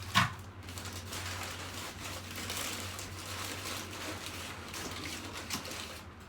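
Packaging being unwrapped and handled: continuous crinkling and rustling with small irregular clicks, opening with one sharp click, over a steady low electrical hum.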